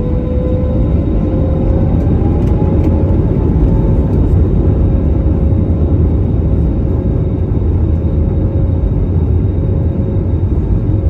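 Airbus A320neo's Pratt & Whitney geared turbofan engines heard from inside the cabin over the wing: a steady low rumble with a whine that rises in pitch over the first two seconds and then holds steady.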